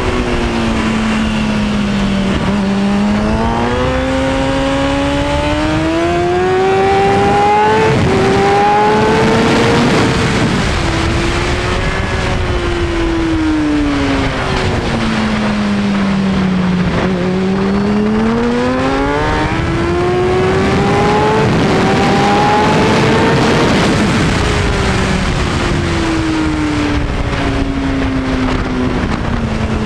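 Onboard sound of a 2003 Kawasaki Ninja ZX-6R 636's inline-four engine at race pace. The engine note drops at the start, climbs through the gears with stepped upshifts, falls away as the bike slows, climbs through the gears a second time, and falls again near the end, over a steady rush of wind noise.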